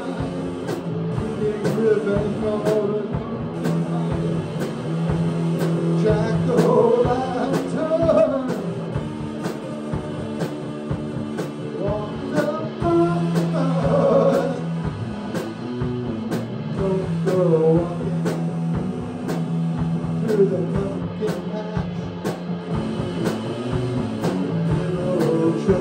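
Live rock band playing: electric guitar, bass guitar and drum kit with a steady beat, and a man singing over them.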